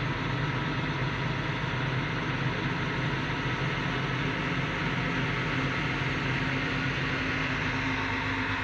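Self-propelled forage harvester's diesel engine running at a steady speed while the machine drives along.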